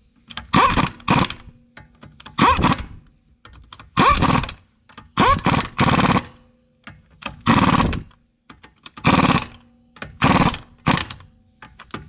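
Impact wrench run in short bursts, about eight of them of roughly a second each, tightening the lug nuts to put the wheel back on.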